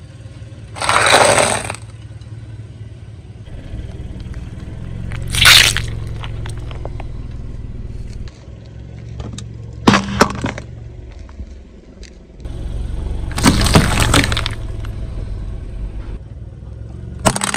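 A car tyre rolling over and crushing a run of objects, such as crunchy snack sticks in a foil tray and drink cans, giving five loud crunching, cracking bursts about three to four seconds apart. A car engine's steady low hum runs underneath.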